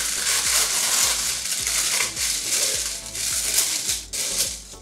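Tissue paper and a cardboard box lid rustling and crinkling as the box is opened. Background music with a steady beat plays underneath.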